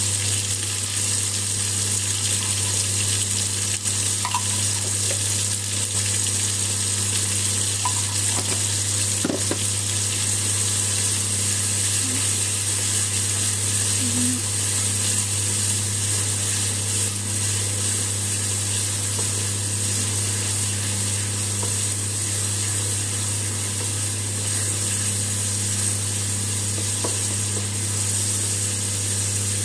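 Chopped tomatoes and green chillies sizzling in hot oil in a kadhai, stirred now and then with a wooden spatula, over a steady low hum.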